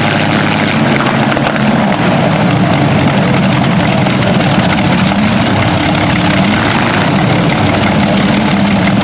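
A Rolls-Royce Merlin V12 aero engine and a radial aero engine running together on ground test stands, propellers turning. The sound is a loud, steady engine drone whose pitch wavers slightly up and down.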